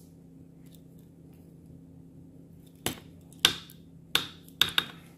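Five sharp plastic clicks in a little over two seconds, starting about three seconds in, as small plastic and silicone eyeglass accessories are handled and pulled apart by hand.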